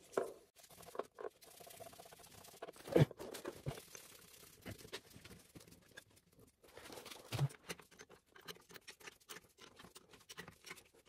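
Gloved hands refitting the filter bowl of an oil-boiler fuel-line filter onto its head: a run of small scrapes, rubs and clicks, with a louder knock about three seconds in and another about seven seconds in.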